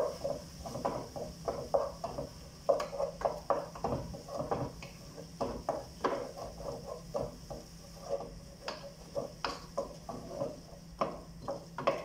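Wooden spoon stirring in a metal cooking pot: a quick, irregular run of knocks and scrapes against the pot, over a steady low hum.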